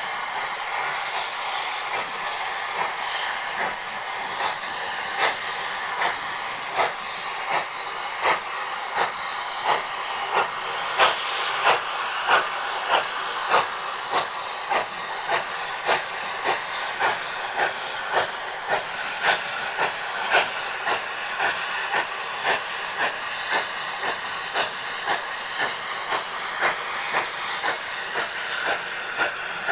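Narrow-gauge steam locomotive working hard with a freight train: a steady steam hiss under regular exhaust chuffs that become distinct a few seconds in and run at about one and a half beats a second.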